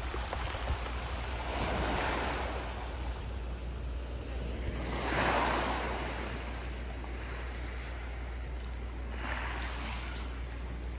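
Small waves washing up onto a pebble beach, surging three times: about two seconds in, near the middle (the loudest), and near the end. A low steady rumble runs underneath.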